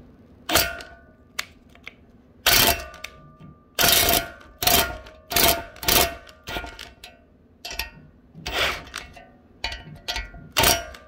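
Metal-on-metal taps and clanks at irregular intervals, each with a short ringing note, from a homemade valve spring compressor and tools on the valve springs of a BMW M54 cylinder head as the tool is adjusted.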